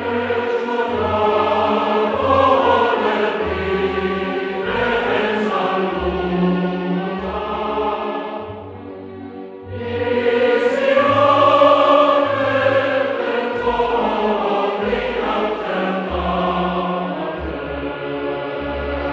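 Background music with long, choir-like sung notes over low bass notes; it thins out briefly about nine seconds in, then swells again.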